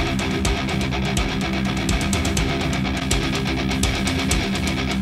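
Guitar-driven rock music with electric guitars and regular drum hits, played through a pair of Edifier S3000Pro active bookshelf speakers and picked up by a microphone in the room. The speakers' DSP mode is switched from Monitor to Classic partway through.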